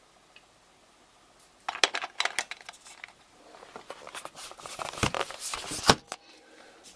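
Handling noise close to the microphone: after a quiet second and a half, an irregular run of clicks, knocks and rustles, the loudest a sharp knock about six seconds in.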